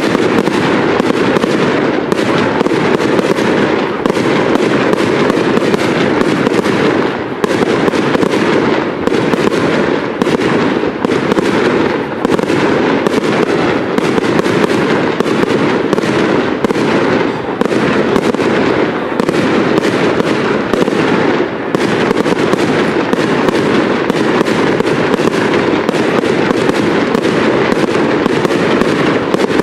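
Fireworks display going off in a dense, unbroken barrage: many bangs and pops each second over a constant rumble of bursts.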